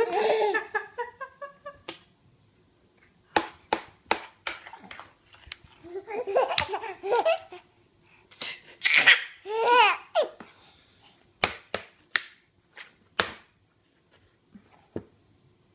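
A baby laughing in high, falling squeals, in several bouts, with sharp short knocks in between.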